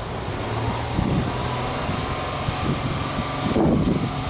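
Subaru Forester XT's turbocharged flat-four boxer engine idling, heard at the dual tailpipes as a steady low exhaust note, swelling briefly near the end.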